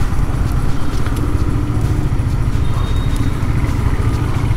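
Honda CBR 150R's single-cylinder four-stroke engine running at low revs as the bike rolls slowly, heard from the rider's seat as a steady low rumble mixed with road noise.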